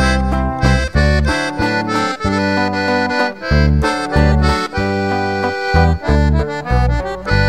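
Instrumental break of a recorded song: a button accordion plays a melody of held notes over a stepping bass line.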